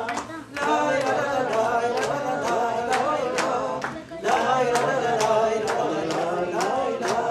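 An older woman singing a song solo, her voice carrying the melody, over a steady sharp beat about twice a second; her voice drops out briefly twice.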